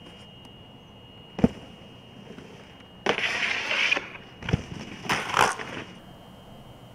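Snowboard riding street features: a sharp clack about a second and a half in as the board hits, then a rough scraping slide lasting about a second, followed by more knocks and scrapes of the board on the feature and in the snow.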